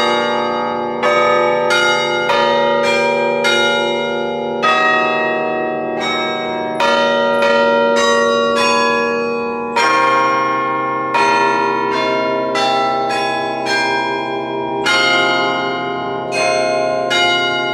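The bells of the Sather Tower carillon playing a slow melody, heard close up from the top of the tower. A new bell is struck about every second, and each note rings on and overlaps the next.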